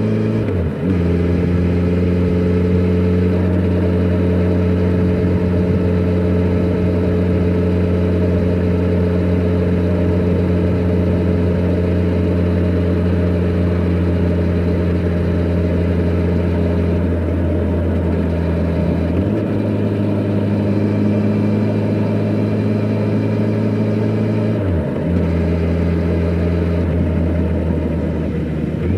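Kawasaki Z900RS inline-four engine through its stock exhaust, running steadily under way on the road, with three brief dips in revs that recover straight away: just after the start, about two-thirds through and near the end.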